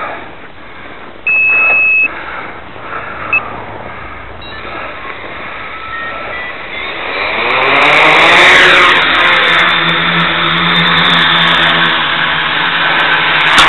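MX400 quadcopter: a single steady beep about a second in, then its electric motors and propellers spin up from about six seconds in, a rising whine that settles into a loud, steady, slightly wavering hum as it lifts off.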